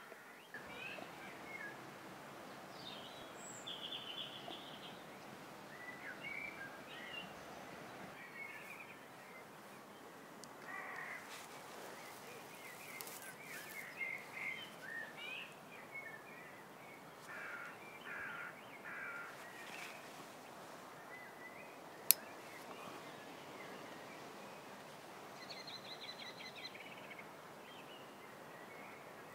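Quiet rural evening ambience with scattered bird calls, some harsh and crow-like, and one sharp click about three quarters of the way through.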